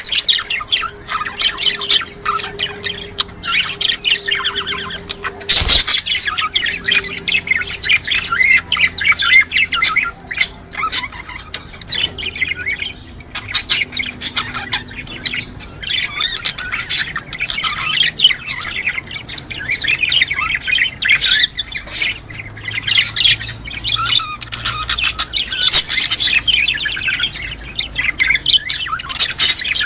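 A flock of cage birds chattering, chirping and squawking in a dense, continuous chorus, the kind of aviary recording played to pet birds to stimulate breeding. A single sharp knock sounds about six seconds in.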